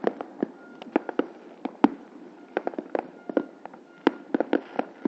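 Many fireworks going off at once: a dense, irregular scatter of sharp bangs and pops, several a second, some loud and close and others fainter.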